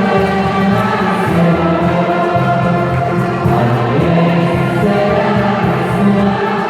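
Choir singing, with notes held and changing in steps.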